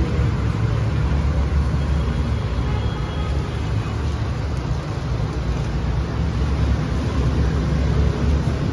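Steady low rumble of background noise, even in level throughout, with no distinct knocks or clicks.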